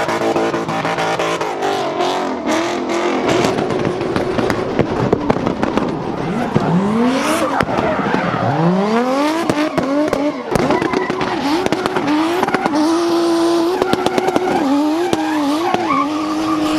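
Turbocharged drift car engines revving hard, pitch rising steeply several times, then held high and bouncing near the limiter, with sharp pops from the exhaust. Tyres squeal under sliding.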